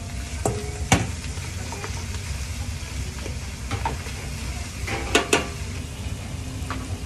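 Sliced onion, carrot, celery and leek tops sizzling as they are sautéed in a stainless steel saucepan for a vegetable court-bouillon. A wooden spatula stirs them and knocks against the pan a few times, sharpest about a second in and twice around five seconds in, over a steady low rumble.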